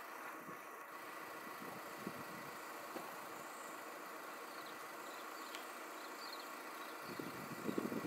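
A vehicle engine idling steadily, with a few soft low sounds starting near the end.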